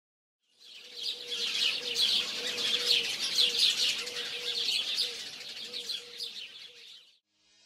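Many small birds chirping and twittering together in a dense chorus, with a faint steady low note beneath. It fades in about half a second in and fades out near the end.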